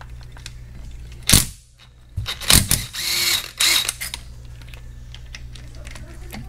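DeWalt cordless ratchet unscrewing 12 mm bolts from the rear differential mount: a sharp crack about a second in, then several short runs of the motor whirring with a steady whine.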